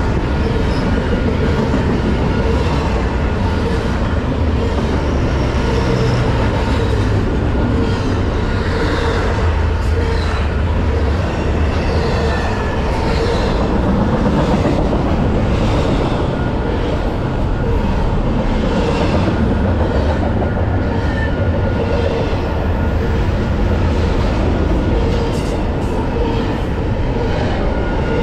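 Freight train cars rolling past close by: a loud, steady rumble of wheels on rail with clicks from the wheels crossing rail joints, sharper near the end.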